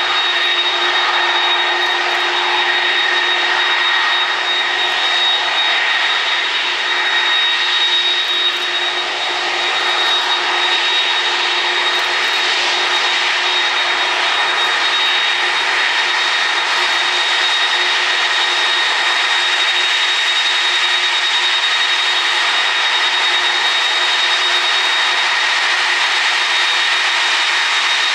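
Jet airliner engines running steadily: a loud rush with a steady high whine over it.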